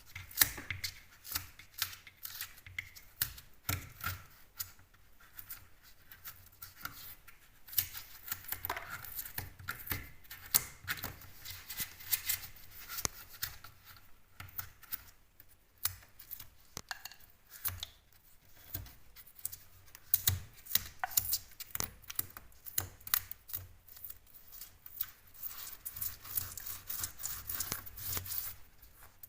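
Cured expanding foam being cut and scraped away from a patched hole in plasterboard: a continuous run of short, irregular cutting strokes.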